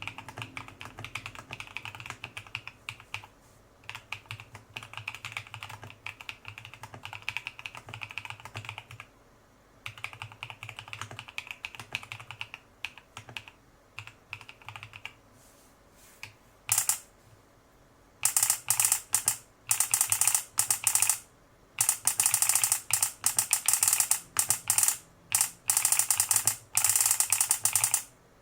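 Typing in runs on a GH60 mechanical keyboard kit fitted with a solenoid and a key-press buzzer. For the first half the key clicks are fairly soft, with a high tone sounding along with each run. From about two-thirds of the way in the keystrokes turn much louder, a rapid clacking in bursts.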